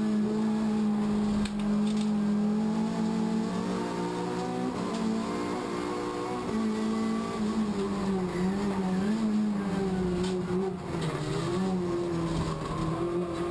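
Race car engine heard from inside the stripped, caged cabin, running hard under load. The note drops for a spell about five seconds in, picks up again, and dips once more near the end as the driver lifts or shifts.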